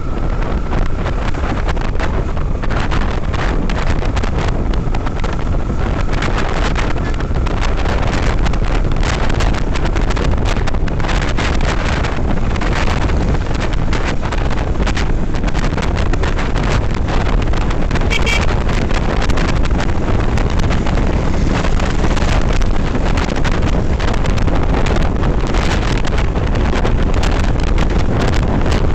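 Steady wind rush on the microphone of a moving Yamaha FZS V3 motorcycle, with the bike running underneath.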